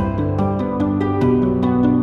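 Instrumental background music: held melodic notes over a light, even beat of about four strokes a second.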